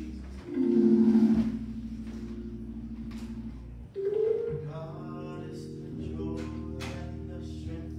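Church band music: held keyboard chords that change about half a second in and again near four and six seconds, with a few light cymbal taps.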